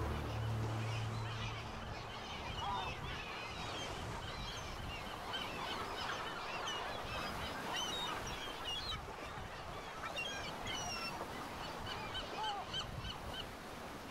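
Many birds calling: short, sharp, hooked calls over a steady rushing background, while low music fades out in the first two seconds. Near the end one bird repeats a short high call about three times a second.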